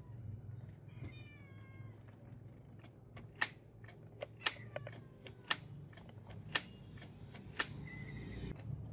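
Canon MG2570S inkjet printer running a colour copy. Its mechanism gives a short whine that falls slightly in pitch, then a series of sharp clicks about once a second, with brief motor tones between them.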